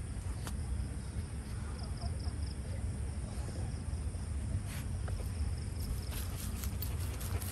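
Insects chirping faintly in a high pulsing trill over a low steady rumble, with a few light crackles of footsteps in dry leaf litter and mulch, more of them in the last few seconds.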